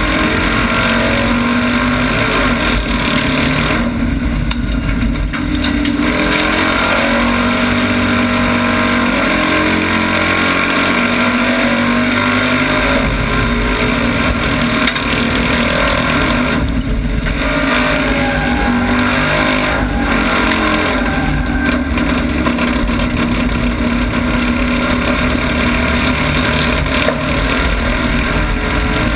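Citroën 2CV cross race car's air-cooled flat-twin engine running hard under racing load, heard from inside the cabin, its revs rising and falling as the driver accelerates and lifts off, with a few short dips in engine note.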